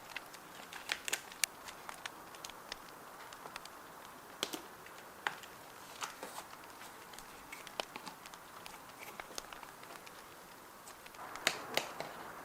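Crackling fire: a steady low hiss with sharp pops scattered irregularly through it. Near the end there is a brief rustle.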